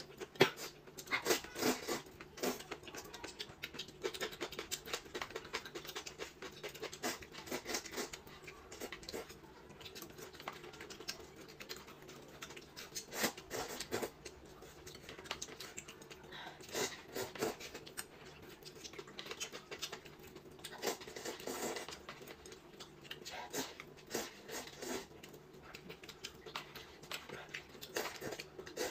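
People eating: slurping rice noodles from a paper cup and chewing, with chopsticks clicking against the cup and a rice bowl, in short irregular bursts.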